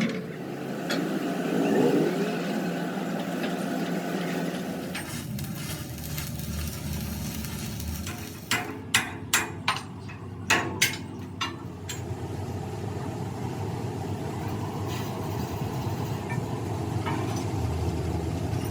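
An engine runs steadily while a hammer strikes metal about six times in quick succession, roughly halfway through.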